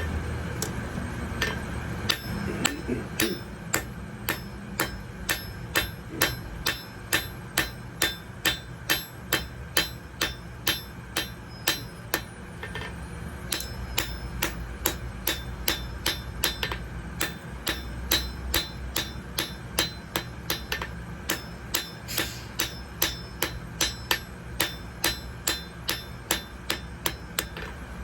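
Blacksmith's hammer striking metal on an anvil in a steady rhythm of about two ringing blows a second, with a few short pauses, over a steady low hum.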